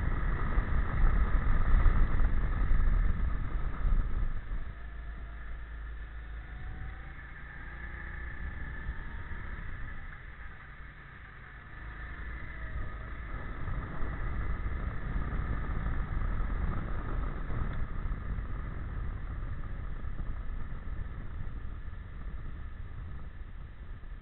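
Go-kart engine heard from onboard at speed, with heavy wind rumble on the microphone. About four seconds in the engine and wind drop away as the kart slows through the bends, and it picks up again near the middle.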